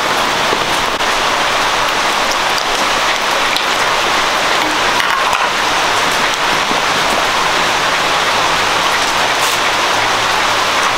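Pork trotters sizzling steadily as they fry in hot oil.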